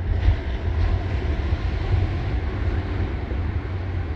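Ocean surf washing onto the beach as a steady noisy hiss, under a heavy, uneven low rumble of wind buffeting the microphone.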